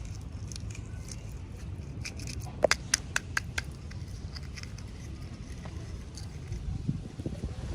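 Small plastic toy pieces and packaging being handled: a quick run of sharp clicks and taps about three seconds in, then softer knocks near the end, over a steady low hum.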